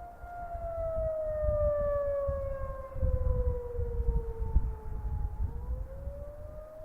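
Federal Signal outdoor warning siren sounding a lahar siren test with a wailing attack signal: one steady tone that slowly slides down in pitch, then rises again near the end. A gusty low rumble runs underneath, strongest from about three seconds in.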